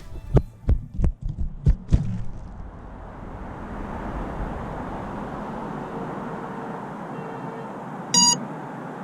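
A run of sharp knocks and clatters in the first two seconds, then a steady hiss, and near the end one short, high electronic beep from an FPV quadcopter's onboard buzzer.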